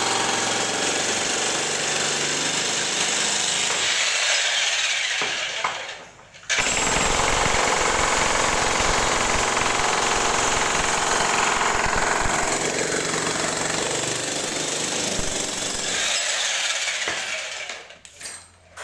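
Jackhammer hammering in a dense, rapid, continuous rattle. It stops briefly about six seconds in, starts again, and dies away near the end.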